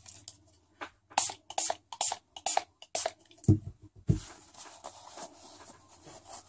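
Pump spray bottle of 91% rubbing alcohol spritzed onto bare fingernails in about five quick sprays, roughly two a second, to cleanse oils off the nails before gel polish. Two dull thumps follow, then the soft rustle of a paper towel rubbed over the wet nails.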